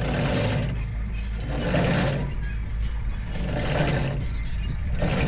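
A steady low machine rumble, with a rasping swish repeated about every one and a half to two seconds.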